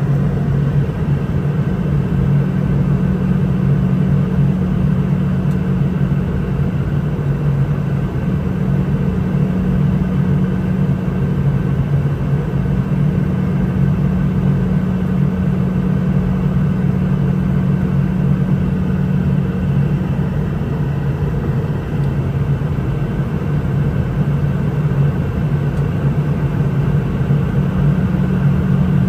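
Steady cabin drone of a Boeing 717-200 in flight on descent: the low hum of its rear-mounted Rolls-Royce BR715 jet engines and the rush of air over the fuselage, heard from inside the passenger cabin, with no change in pitch or level.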